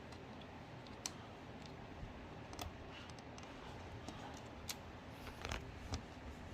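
Scattered small clicks and taps from hands working on the parts of an LCD TV being taken apart: a sharp click about a second in and several more near the end.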